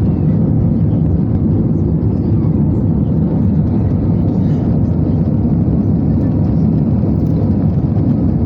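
Airplane in flight: a steady, even low rumble with no change in pitch or level.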